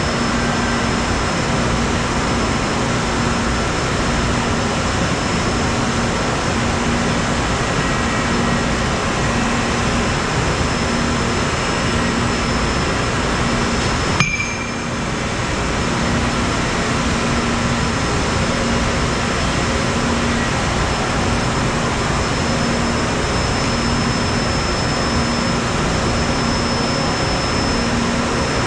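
Steady machine-shop din from a robot-loaded CNC lathe and the machines around it: a continuous mechanical hum with thin steady whining tones and a low tone pulsing on and off in a regular rhythm. A sharp click about halfway through, followed by a brief dip in the noise.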